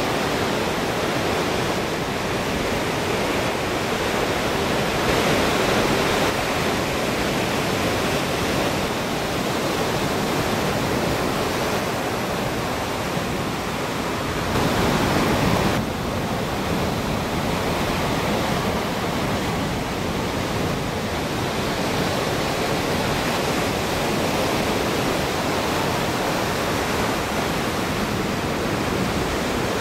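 Ocean surf breaking and washing in a continuous, even rush of noise, a little louder for about a second just past halfway.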